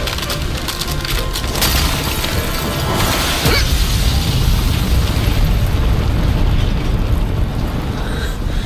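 Dramatic score music over a deep rumbling boom, with crackling and a burst of shattering ice about three seconds in as an ice encasement breaks apart into mist.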